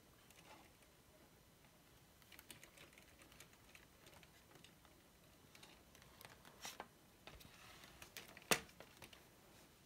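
Faint, scattered light clicks and taps of vertical window-blind slats knocking together as a cat pushes between them, with one sharper click about eight and a half seconds in.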